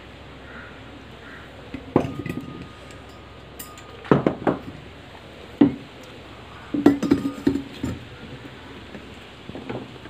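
Metal clinking and knocking: about six irregular sharp clinks, the first ringing on briefly with a thin steady tone, over a steady low hiss.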